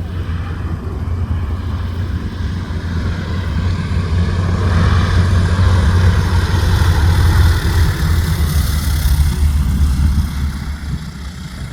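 Piston engine of a vintage propeller aircraft running with a deep, steady sound, growing louder to a peak and then fading, as of the plane passing by.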